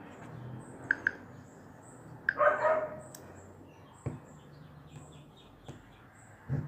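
A dog barking once, about two and a half seconds in, over faint high chirping that repeats throughout, with a few sharp clicks.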